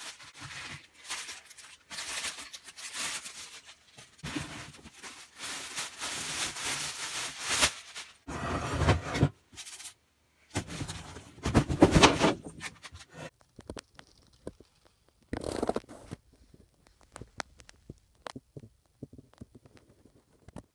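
Clear plastic bag crinkling and cardboard packaging rustling and scraping as a boxed bandsaw is unwrapped and lifted out, loudest about eight and again about twelve seconds in, then only a few light clicks and taps.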